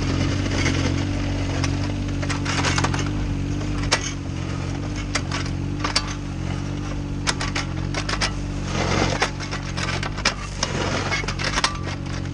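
Komatsu mini excavator's diesel engine running steadily while its steel bucket digs and scrapes through soil and gravel, with many sharp clicks and knocks of stones against the bucket.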